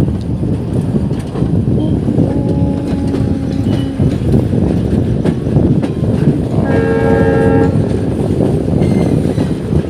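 Passenger train running on the rails with a heavy, steady rumble. The horn sounds twice: a lower held blast from about two seconds in, then a shorter, higher and richer blast around seven seconds in.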